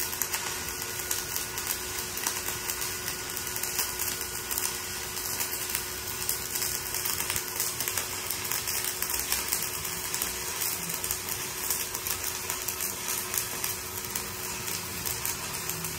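Stick-welding arc from a 3.2 mm electrode burning continuously at full amperage: a steady, even crackle and sizzle, with a faint steady hum beneath it.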